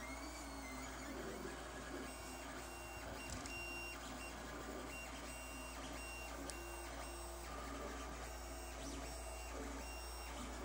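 Lulzbot TAZ 3 3D printer printing: its stepper motors whine in short high tones that start, stop and change pitch as the print head and bed move back and forth, over a steady low hum.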